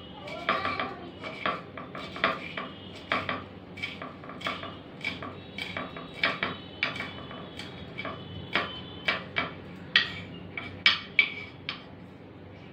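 Kitchen knife chopping green chilies and garlic on a round wooden chopping board: irregular taps of the blade on the wood, about one or two a second, stopping shortly before the end.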